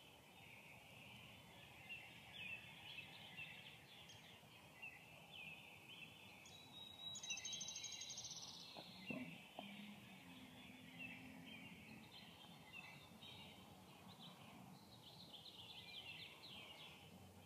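Faint woodland birdsong: many small birds chirping and calling, with a buzzy trill about seven seconds in and a brief low hum just after.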